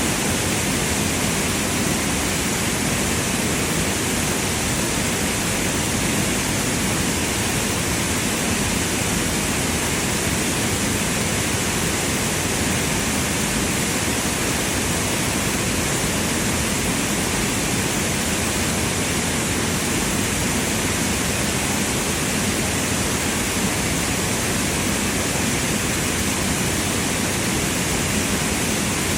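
Steady, unbroken rush of running water, like a fountain or cascade, with no change throughout.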